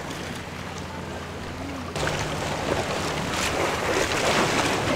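Water splashing and lapping around an inflatable canoe on the sea, with wind on the microphone and a low steady hum underneath. The splashing and wind noise get suddenly louder about two seconds in.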